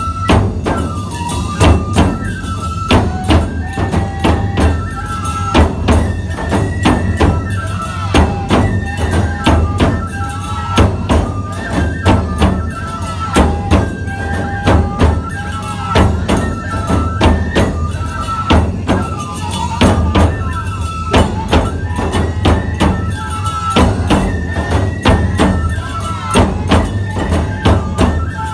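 Nebuta bayashi festival music: bamboo fue flutes playing a repeating melody over pounding taiko drums and clashing tebiragane hand cymbals, with a steady driving beat.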